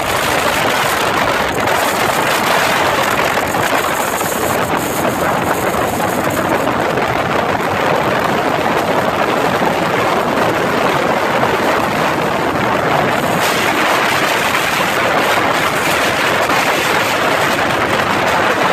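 Steady wind rush over a phone microphone on a moving chopper motorcycle at highway speed, with the bike's engine and road noise under it.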